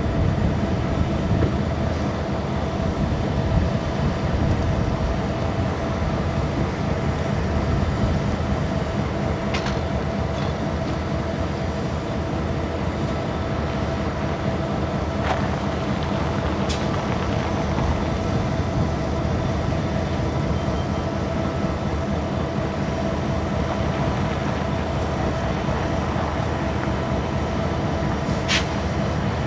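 EMD 645 diesel engines of Bessemer & Lake Erie SD38AC locomotives running, a steady low engine sound with a steady whine over it. A few sharp clicks stand out along the way.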